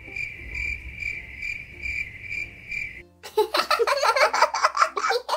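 Cricket-chirping sound effect, a steady high chirp pulsing about twice a second: the comic 'crickets' cue for an awkward silence. It cuts off after about three seconds and children's voices follow.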